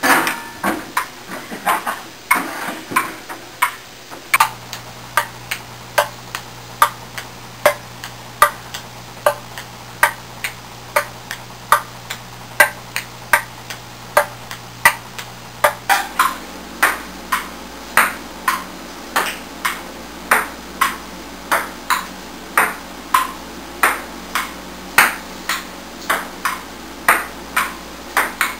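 Ping pong rally: the ball clicking off paddles and table in a steady back-and-forth rhythm, about two hits a second.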